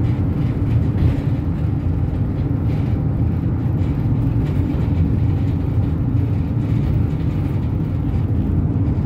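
Steady low rumble of engine and road noise heard from inside a moving road vehicle, with no changes in speed or gear.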